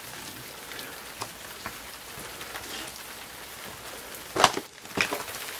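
Steady hiss with faint scattered ticks, then a sharp knock about four and a half seconds in and a lighter click a moment later.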